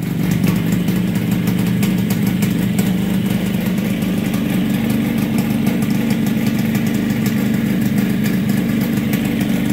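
1964 Yamaha YDS3's 250 cc two-stroke twin engine idling steadily.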